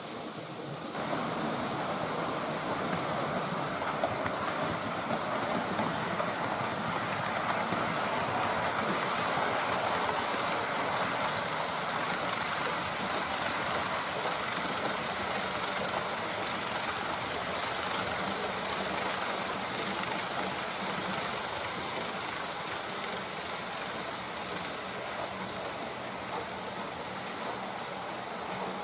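H0-scale model train running along the track: a steady hum of motor and wheels on the rails that comes in about a second in and slowly fades toward the end.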